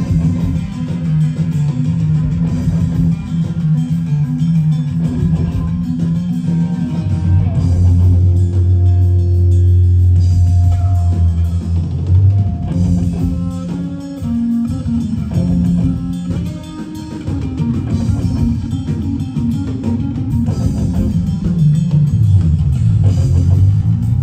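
Live rock band playing, with bass guitar, electric guitar and drums, and the bass line loudest. A long, deep bass note is held from about seven to twelve seconds in.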